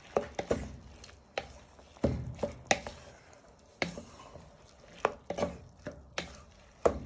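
Wooden spatula stirring rice, stock and vegetables in a pan, scraping and knocking against the pan in a series of irregular strokes.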